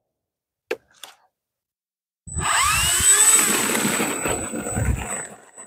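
Electric 900 kV brushless motor and propeller of an FMS 1100 mm PC-21 RC plane throttling up for the takeoff roll. A couple of faint clicks come first. About two seconds in, a rising whine starts as the motor spools up, then settles into a steady high whine over the rush of the prop, easing slightly near the end.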